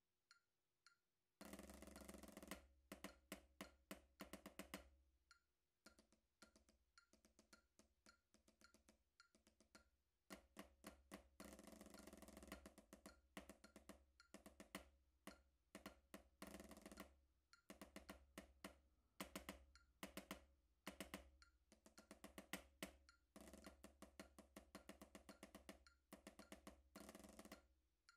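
Drumsticks playing a snare drum study of single strokes, accents and sixteenth-note-pulse rolls, over a metronome clicking at 108 BPM. The metronome clicks alone for about the first second, then the playing comes in.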